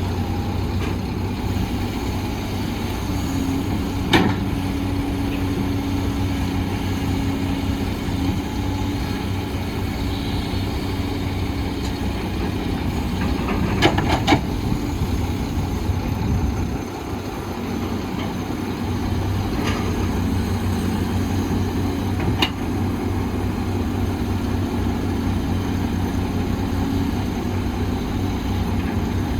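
Heavy diesel earthmoving machinery running steadily, with a few sharp knocks scattered through.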